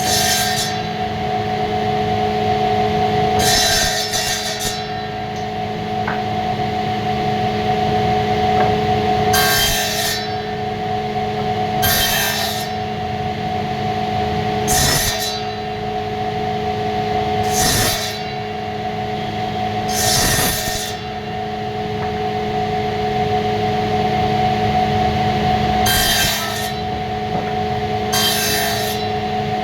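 A woodworking power tool's motor hums steadily, with about ten short, hissy cutting strokes at uneven gaps of two to six seconds as wood is worked.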